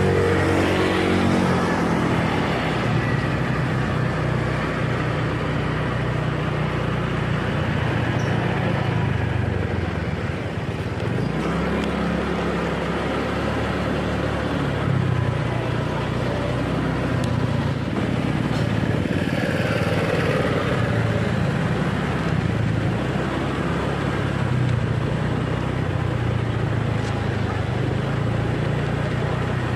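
Small motorcycle engine running under way, with steady wind and road noise. Its pitch dips and then rises again about eleven seconds in as it slows and picks up speed.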